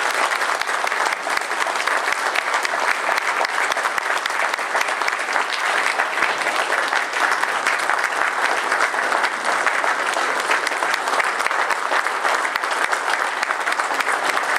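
Audience applauding, a roomful of hands clapping steadily without a break.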